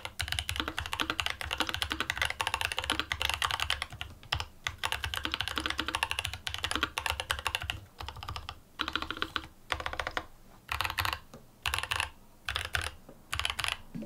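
Typing on a Rama Works M65-B 65% custom mechanical keyboard with a brass plate, silicone dampener, lubed and filmed Gazzew Boba U4T tactile switches and GMK Minimal keycaps: rapid key clacks, unbroken for about eight seconds, then in short bursts with brief pauses.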